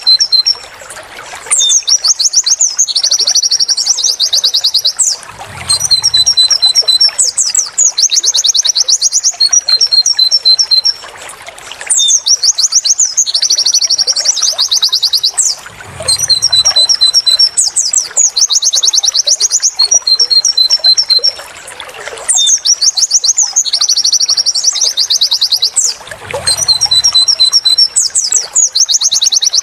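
White-eye (pleci) song: loud, fast, high chirps and trilled 'wit wit tulit tulit' phrases. The same run of phrases repeats about every ten seconds, as a looped tutor recording.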